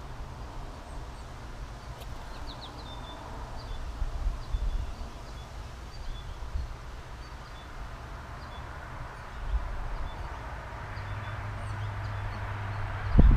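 Outdoor ambience: a low, uneven rumble of wind on the microphone, with a few faint, short bird chirps. A low steady hum comes in during the last few seconds, and a loud thump sounds near the end.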